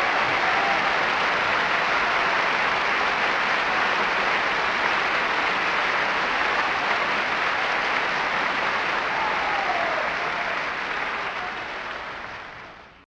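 An audience applauding steadily, a dense even clapping that fades out over the last couple of seconds.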